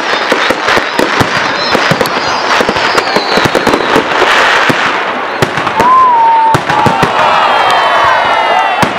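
Aerial firework display: a rapid, dense crackle of bangs and pops from bursting shells and crackling stars. About six seconds in, a whistle rises and holds briefly, followed by fainter falling whistles.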